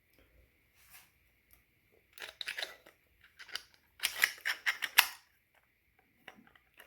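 3D-printed plastic motor parts being handled and fitted together on a bench: short bursts of hard clacks and rattles, the sharpest click about five seconds in.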